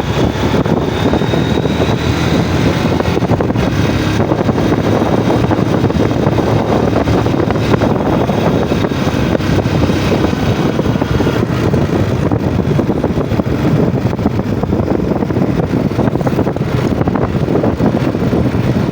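Yamaha Jupiter MX underbone motorcycle engine running under way, mixed with heavy wind buffeting on the microphone, with faint rises and falls in engine pitch.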